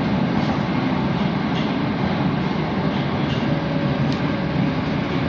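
Moskva-2020 (81-775) metro train running at speed through a tunnel, heard from inside the car: a steady, loud rumble of wheels and running gear. A faint steady whine joins about two-thirds of the way in.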